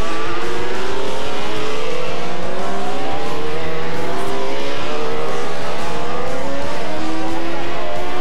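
Racing motorcycle engines accelerating hard, several at once, their pitch climbing again and again as they rev up through the gears.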